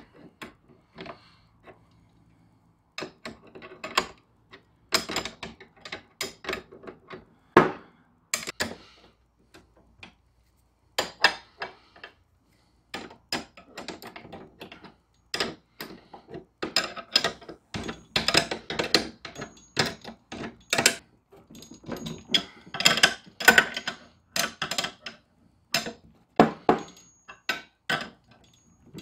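Wrench tightening the steel bracket bolts of a lawn-mower striping-roller kit: a string of irregular metal clicks and clinks. They are sparse at first and come thick and fast in the second half.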